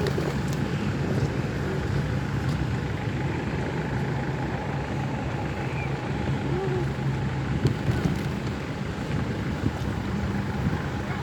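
Busy outdoor ambience: a steady hum of passing vehicles and engines with indistinct voices of people nearby.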